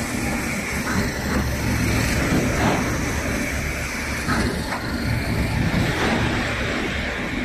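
Automatic corrugated-carton folder gluer and stitcher machine running, a steady mechanical din with irregular knocks and clacks from the feed and stitching sections.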